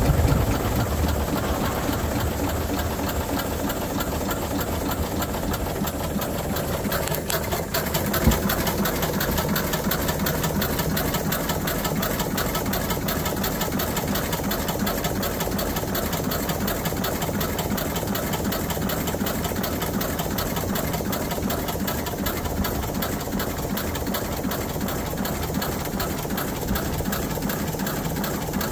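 Steam launch's small reciprocating steam engine running steadily, a fast, even mechanical clatter of pistons and valve gear, with a single sharp knock about eight seconds in.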